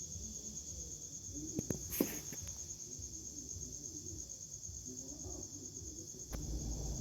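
Insects, likely crickets, chirring steadily in a high, fast-pulsing trill, with a few faint clicks and a short knock about two seconds in.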